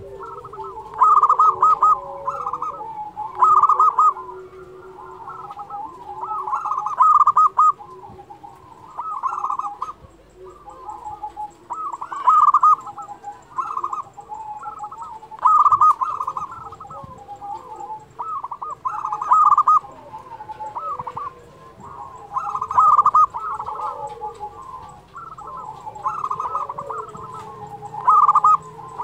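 Local zebra dove (perkutut) singing: a loud, staccato cooing phrase repeated about every three seconds, with softer cooing between the phrases.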